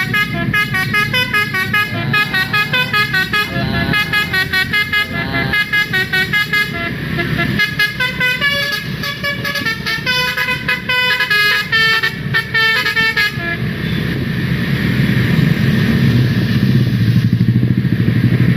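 A bus's basuri telolet horn, a multi-tone musical horn, plays a fast tune of short stepping notes for about thirteen seconds and then stops. After it stops, the bus engine runs on with a low rumble that grows louder toward the end.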